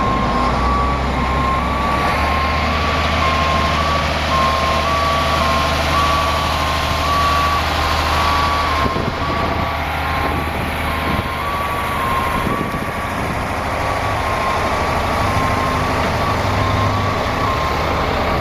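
Concrete mixer truck's diesel engine running with its reversing alarm beeping steadily about once a second as it backs up.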